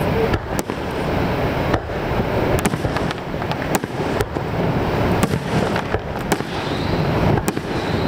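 Aerial fireworks shells bursting: a string of sharp bangs and crackles at irregular intervals, over a steady low rushing noise.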